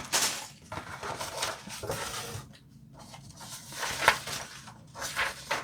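Plastic bag of Lego parts being handled: irregular crinkling and rustling, with a few sharp clicks about four and five seconds in.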